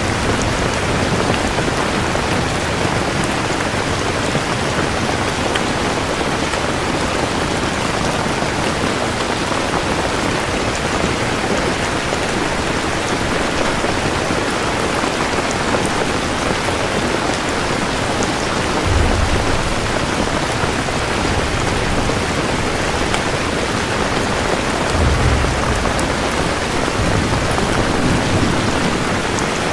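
Steady heavy rain falling, with low rumbles of thunder swelling briefly about two-thirds of the way in and again twice near the end.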